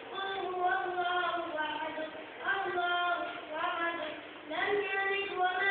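A boy singing solo without accompaniment, holding long notes that slide up into each phrase, with short pauses between phrases.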